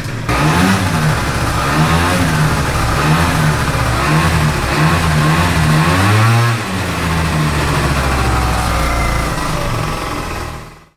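MBK Booster scooter's two-stroke engine running and being revved up and down, the pitch rising and falling repeatedly, with a quick rise and drop about six seconds in. It cuts off abruptly at the end.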